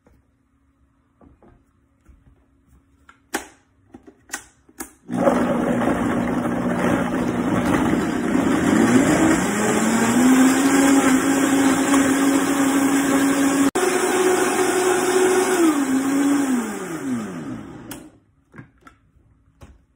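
A few clicks from the controls, then a Vitamix blender motor starts about five seconds in, blending beet, carrots and water into a purée. Its pitch steps up twice as the speed dial is turned up, then drops and winds down to a stop near the end.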